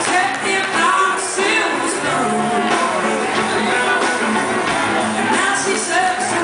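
A live rock band playing, with electric guitars, drums and singing, recorded from among the audience in a large hall.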